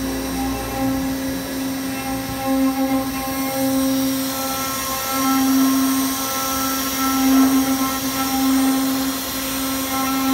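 Spindle motor of a Megatron GMT300 4-axis CNC wood lathe-mill running with a steady whine. A brighter hiss joins from about four seconds in.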